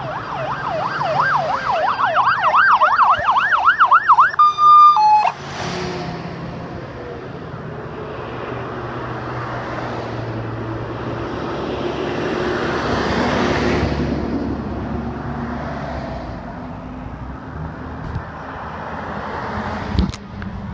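Emergency vehicle siren on a fast yelp, about four sweeps a second, cutting off after a few seconds with a short two-note horn-like blast. Then the engines and tyres of procession vehicles passing, swelling as a fire engine goes by, with a few sharp clicks near the end.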